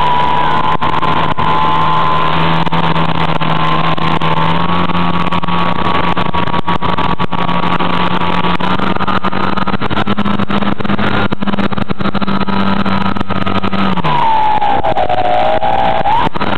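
Radio-controlled plane's motor and propeller in flight, heard from a camera on board: a steady whine over rushing noise. The pitch dips about fourteen seconds in as the throttle eases, then climbs back up near the end.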